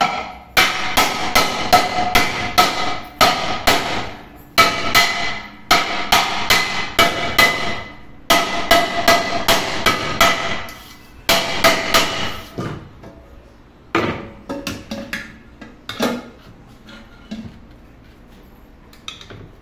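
Hammer blows on an aluminium pressure cooker, each strike leaving the metal pot ringing. They come in quick runs of about three or four strikes a second with short pauses between, then thin out to a few scattered strikes near the end.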